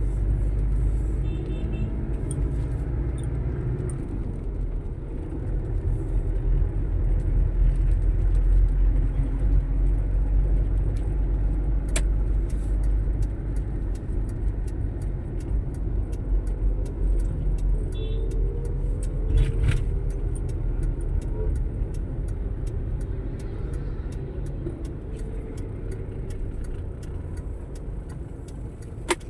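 Motor vehicle engine and road noise in traffic: a steady low rumble, with the engine pitch rising and falling now and then.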